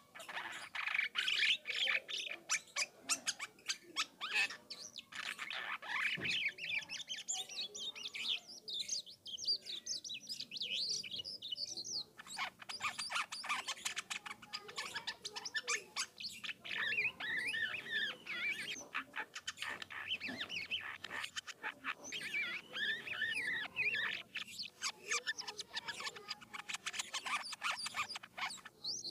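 Jalak kapas starling singing a long, continuous, varied song of chattering, quick clicks and whistled phrases. This is the rolling 'ngerol' song of a bird in full song (gacor).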